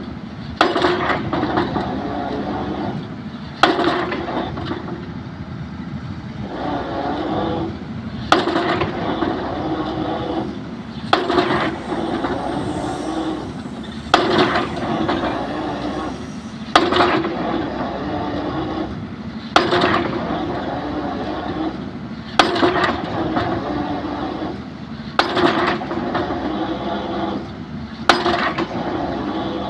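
Excavator drop hammer striking a pile, a sharp heavy blow about every three seconds, with the excavator's diesel engine running steadily between blows.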